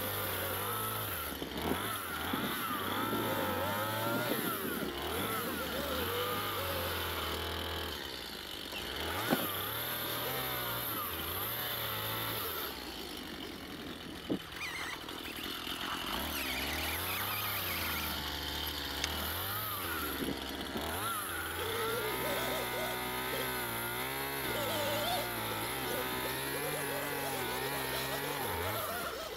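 A motor vehicle's engine running, its low hum shifting up and down in pitch.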